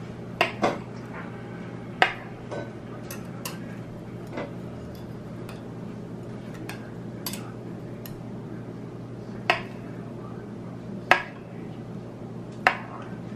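Metal knife clinking and scraping against a ceramic baking dish while slicing a baked cassava cake: sharp clinks at irregular moments, two close together right at the start, one at about two seconds, and three more in the last four seconds, over a steady low hum.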